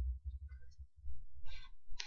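Quiet room tone: a steady low hum, with a brief soft noise near the end.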